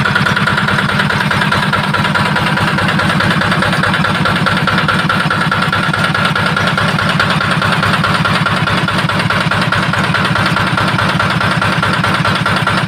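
Yanmar TF65LYS single-cylinder horizontal diesel engine running at a steady speed, driving an Ebara 3-inch water pump, with an even, fast firing beat and no change in pitch. It is a condition test run, and the engine is judged in good working order.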